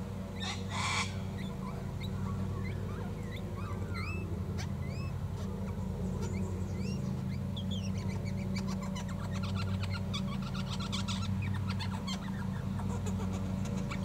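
Several lawnmower engines drone steadily in the background, and birds chirp in short rising notes over them. A short noisy burst comes about half a second in.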